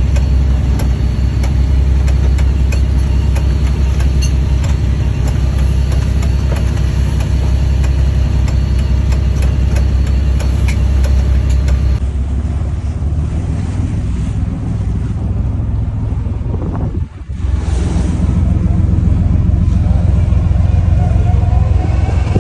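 Boat engine running steadily under way, a low drone. About halfway through the sound changes suddenly, and a few seconds later it drops away briefly before the drone returns.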